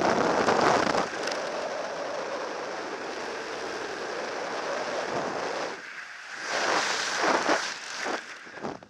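Wind rushing over a helmet camera's microphone under an open ram-air parachute canopy: a steady rush with stronger gusts in the last few seconds that fall away at the end.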